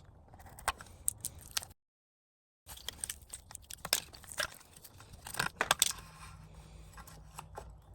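Scattered small clicks, snips and scrapes of a power cord's outer jacket being cut and stripped back by hand, broken about two seconds in by a second of dead silence.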